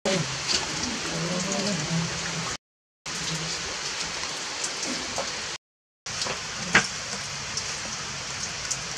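Steady rain falling, with scattered drops ticking; the sound cuts out briefly twice, about two and a half and five and a half seconds in.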